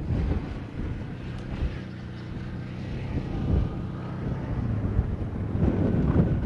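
Wind buffeting the microphone, with a steady low engine drone underneath through the middle.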